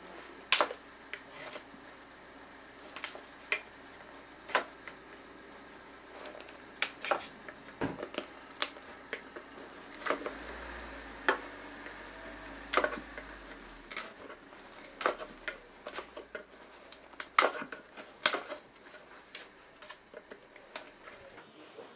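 Small knife cutting and prying dried honeysuckle vine out of the spiral groove it has grown into in a wooden walking stick. Irregular sharp clicks and snaps of the blade on dry wood, a couple of strokes a second at the busiest.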